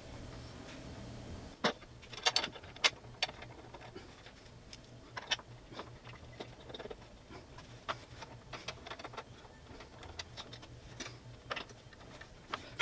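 Scattered light clicks and knocks of parts and hand tools being handled while a passenger-peg bracket is fitted to a motorcycle's rear frame. A cluster of sharper knocks comes about two to three seconds in, and a few isolated clicks follow.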